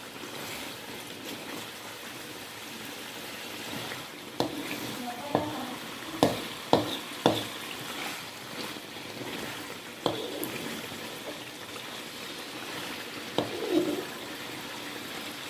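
Food frying in a pan with a steady sizzle while a spatula stirs it, knocking sharply against the pan now and then, with three quick knocks in a row about six to seven seconds in.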